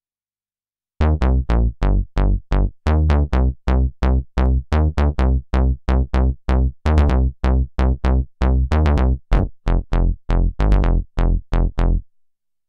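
Reveal Sound Spire software synthesizer playing one of its factory bass presets: a rapid line of short bass notes, about three to four a second, each starting bright and quickly darkening as the filter closes. The notes begin about a second in and stop shortly before the end.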